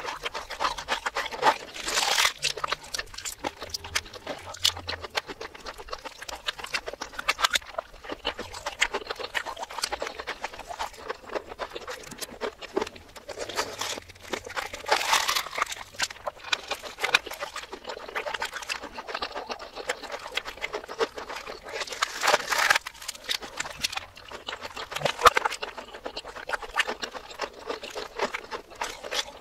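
Close-miked chewing of crispy fried chicken, with crunches and wet mouth clicks and smacks, played in reverse. Louder bursts of crunching come every several seconds.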